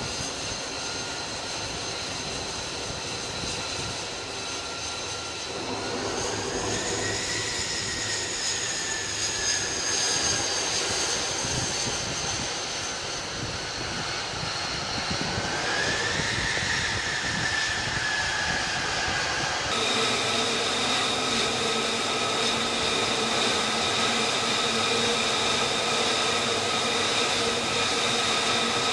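F-35C's Pratt & Whitney F135 jet engine running on the deck with a steady high whine. Its pitch rises and falls twice, and about two-thirds of the way through the sound changes abruptly to a steadier whine with more low tones.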